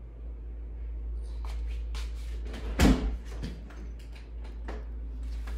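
A door being opened and handled: a string of clicks and knocks, with one louder thump about three seconds in, over a steady low hum.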